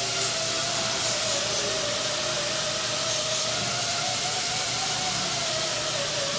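Steady hissing with a wavering mid-pitched whine running through it, from workshop cleaning equipment being used on aircraft wing parts.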